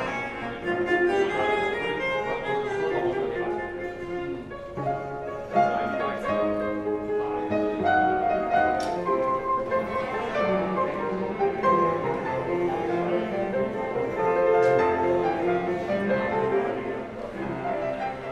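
Classical music with bowed strings and piano, played over a hi-fi demonstration system with Jadis valve amplification and Diptyque DP160 loudspeakers and heard in the listening room.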